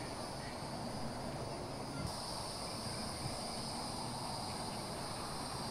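Steady evening chorus of crickets and other insects, a continuous high trilling over a low, even background hum.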